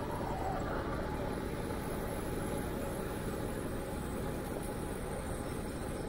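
Steady wind rush and low rumble on the microphone of a camera moving along a paved bike path, mixed with bicycle tyre noise on the asphalt.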